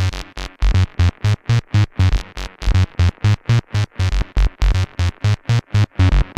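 Make Noise 0-Coast synthesizer playing a fast sequenced pattern of short notes, about four to five a second, with a strong bass and the pitch shifting from note to note.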